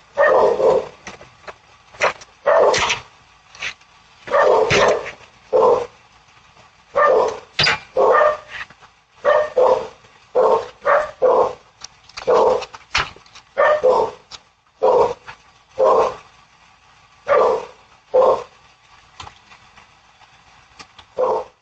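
A dog barking over and over, single and paired barks about once a second with short gaps between.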